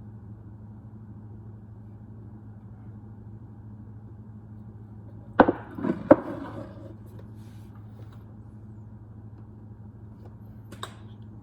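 Two sharp knocks about two-thirds of a second apart, with a short rattle between them, over a steady low hum; a faint click near the end.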